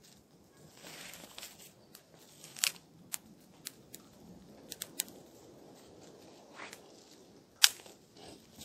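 Small twig fire that has just caught, crackling with scattered sharp pops from the burning sticks, the loudest one near the end.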